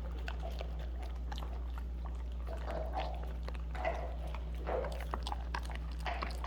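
A puppy chewing a treat: crisp clicks and wet mouth smacks, a few louder ones in the second half, over a steady low hum.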